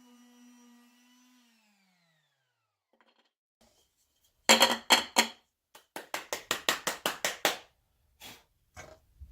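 Electric sander motor winding down after being switched off, its hum falling in pitch and dying out about a second and a half in. After a pause, a run of sharp, hard clicks and clatters, about four a second at the busiest.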